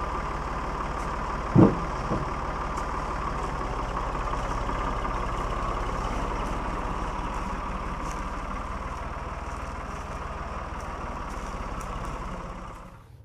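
Engine idling steadily, with one heavy thump about a second and a half in and a lighter one just after; the engine sound cuts off shortly before the end.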